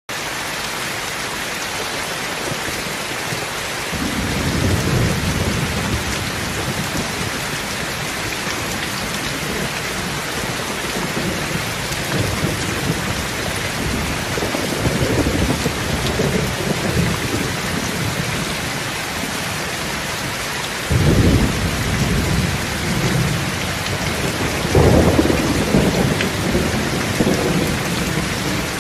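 Car-wash spray wand hissing steadily as it sprays coloured foam and water against a Peterbilt truck's grille and cab. Low rumbling swells come and go several times, loudest at short bursts near the end.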